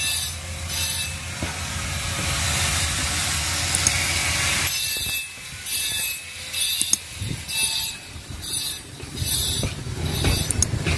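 Machinery running: a steady low rumble with a regular clatter about every three quarters of a second, and a hissing rush that swells and then cuts off sharply about halfway through.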